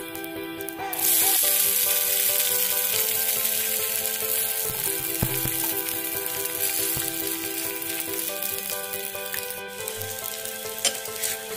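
Okonomiyaki batter frying in oil on an electric personal skillet. The sizzle jumps up about a second in, as the raw side of the flipped pancake lands on the hot pan, then eases off slowly. Background music plays under it.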